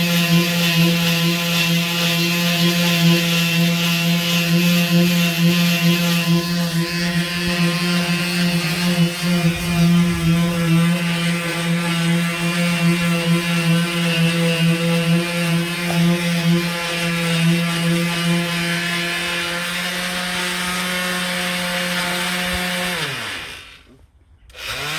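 Electric sander running steadily on the van's bodywork, a constant motor hum with a sanding hiss. Near the end it is switched off, its pitch falling as it winds down to a stop, then it starts up again.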